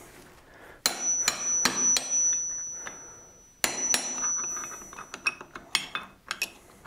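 Hammer striking a chisel held against the steel clutch lock nut of a Honda XR250R engine, driving the nut loose in place of a spanner wrench. Four sharp metallic strikes come about a second in, with a high ringing tone that hangs on for a few seconds. Two more strikes come near the middle, then a run of lighter taps and clinks.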